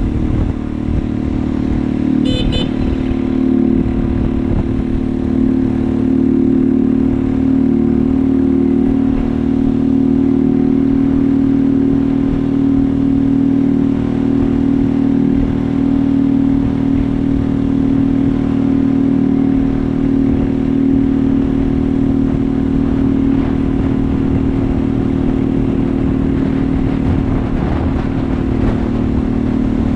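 Scrambler motorcycle's engine running at a steady cruising speed, heard close up from the rider's seat. A short high beep sounds about two seconds in.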